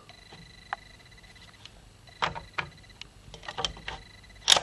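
Metal parts of a home-made Browning M2 replica clicking and knocking as they are handled by hand: a few scattered clicks, a cluster of them in the middle, and the sharpest knock near the end.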